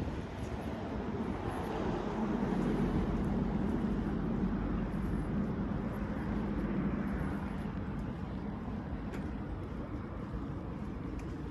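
Low rumble of a passing motor vehicle, swelling over a few seconds and then fading away.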